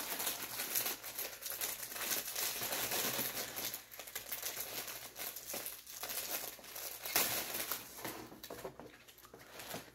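Plastic bag around a T-shirt crinkling irregularly as hands pick and pull at it, trying to open it without a knife, with a sharper crackle about seven seconds in.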